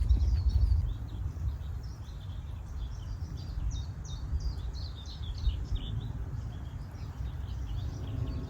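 Songbirds chirping and singing, a busy run of short, high, quick notes, over a steady low rumble.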